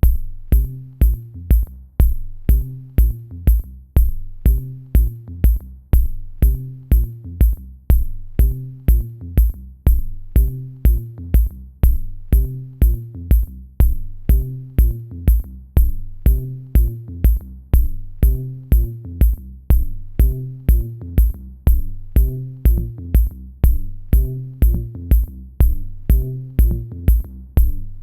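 Electronic background music with a steady drum-machine beat, about two kicks a second, over a bass line and ticking hi-hats.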